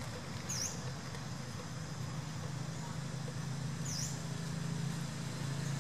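A steady low hum, like a motor running, with two brief high chirps, one about half a second in and one about four seconds in.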